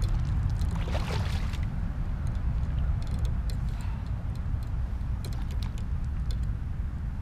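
A hooked bowfin thrashing at the surface beside a kayak, with a burst of splashing about a second in and a few short splashes and clicks after, over a steady low rumble of wind on the microphone.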